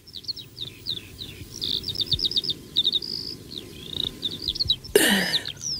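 Small birds chirping and trilling in quick, high runs of notes, as a garden ambience. A louder, short falling cry comes about five seconds in.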